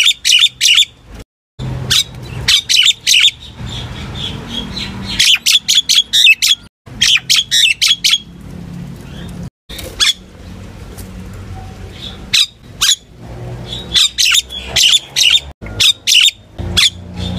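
Common myna calling: repeated clusters of quick, squawky notes every second or two, used as a lure to call a flock.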